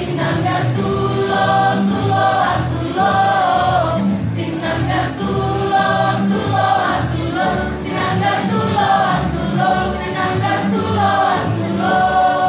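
A large school choir singing together, holding notes and moving from note to note.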